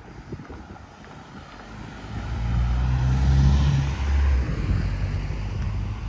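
A motor vehicle passes close by on the street. Its engine hum and tyre noise swell about two seconds in, are loudest around the middle, then ease off.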